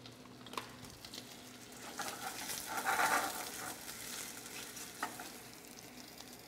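Small onions sizzling in olive oil and honey in a stainless steel pan as they glaze and caramelize, stirred and scraped with a silicone spatula. The sizzle swells about two seconds in, and there are a couple of light taps of the spatula on the pan.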